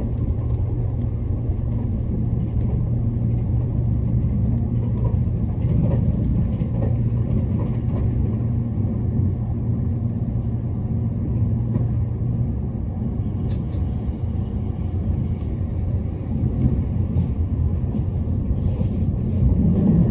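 Running noise of a JR East E353 series limited express train at speed, heard inside the passenger car: a steady low rumble, growing a little louder near the end.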